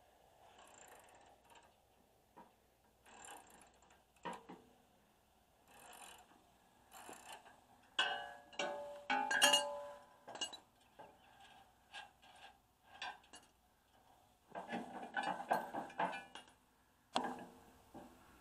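Hand wrench working bolts on a flail mower's skid shoe bracket: irregular bursts of ratcheting clicks and metal clinks, busiest around halfway and again near the end.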